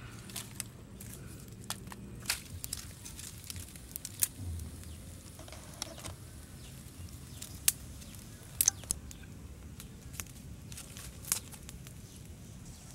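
Dry twigs and grass snapping and crackling as they are laid on and catch in a small kindling fire: irregular sharp cracks, a dozen or so, the loudest a little after four seconds and around eight to nine seconds, over a steady low hiss.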